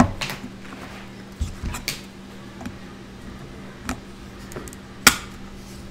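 Scattered small clicks and taps of a clear plastic magnetic card holder being handled and closed around a card, the sharpest click about five seconds in, over a faint steady hum.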